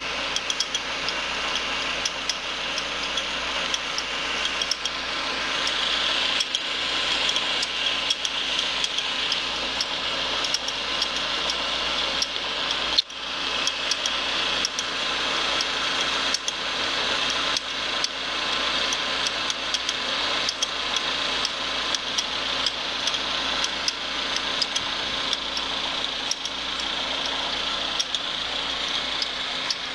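Peugeot 206 XS engine running with an abnormal noise from the accessory drive belt, heard after the alternator was replaced. There is a steady high-pitched whir with frequent irregular ticks, and a momentary break about thirteen seconds in.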